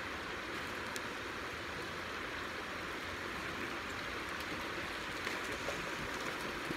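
Shallow creek flowing over rocks: a steady, even rush of water.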